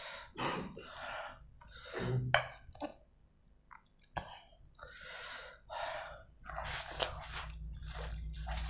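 A person eating spicy instant noodles up close: chewing and breathing in short noisy bursts, then a run of louder slurps as a mouthful of noodles is sucked in during the last two seconds or so.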